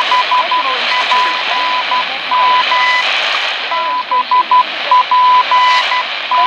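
Shortwave time-signal station on 15.000 MHz heard through a HanRongDa HRD-700 receiver's speaker: a Morse code call sign sent as a high steady beeping tone in dots and dashes, over hissing static.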